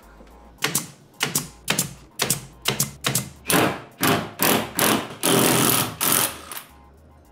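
Cordless drill driving a hole saw through plywood, cutting in more than a dozen short bursts, the last ones longer, and stopping shortly before the end.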